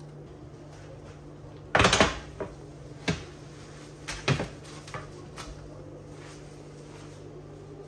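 Metal baking tray and oven door being handled: one loud clatter about two seconds in, then several lighter knocks and clicks over the next few seconds, over a steady low hum.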